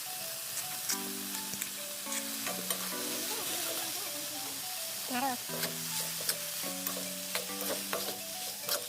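Food sizzling in hot oil in a pan, with scattered clicks of a utensil stirring it, over soft background music.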